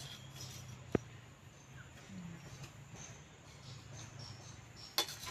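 Quiet outdoor background with faint insects chirping, broken by a sharp clink about a second in and another near the end: a steel serving spoon knocking against a steel plate.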